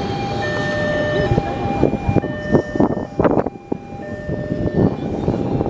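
KAI Commuter electric multiple-unit train running slowly past, with a repeating two-tone electronic signal that switches between a higher and a lower pitch about once a second. A cluster of short sharp sounds comes between about two and three and a half seconds in.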